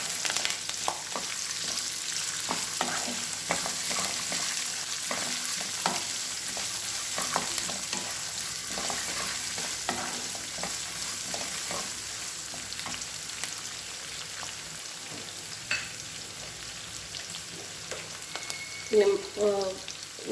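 Chopped onions sizzling in hot oil with peanuts, tempering spices and green chillies while being stirred, with frequent short scraping clicks of the utensil against the pan over a steady sizzle.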